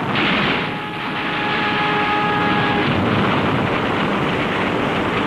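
Aircraft engine noise: a steady, dense drone with a faint whine over it that stops about three seconds in.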